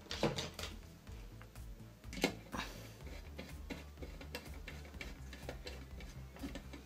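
Irregular light clicks and taps of hands and a small tool working on the sheet-metal frame of an emergency tube-light fitting, the sharpest about a quarter second in and just after two seconds in. Low background music runs underneath.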